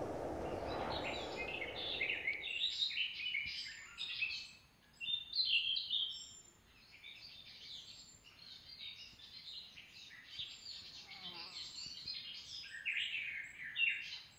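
Wild birds singing, a busy run of short high chirps and trills from several birds. A low rushing noise fades out over the first two seconds.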